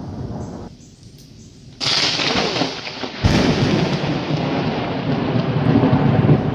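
Thunder from a close lightning strike. A low rumble fades, then about two seconds in comes a sudden sharp crack, a second crack about a second and a half later, and a loud rolling rumble after.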